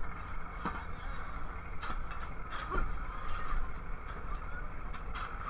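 Shovels scraping and knocking in crushed ice on a boat deck, a few sharp strokes over the steady hum of the boat's engine.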